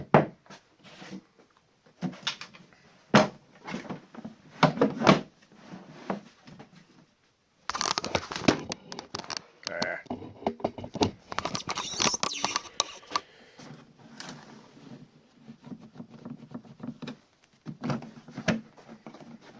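Wooden workpiece being handled and test-fitted: scattered knocks and taps, then about six seconds of continuous rubbing and scraping of wood on wood, then a few more taps.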